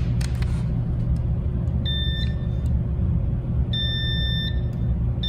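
Digital clamp multimeter's continuity beeper sounding twice, short steady high beeps about two and four seconds in, with a third starting at the end, as the probe touches the band heaters and the plug's ground pin: each beep means the ground connection is continuous. A steady low rumble runs underneath.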